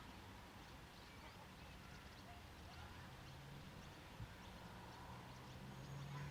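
Faint city park ambience: a steady low hum of distant traffic, scattered faint bird chirps, and a single soft knock about four seconds in.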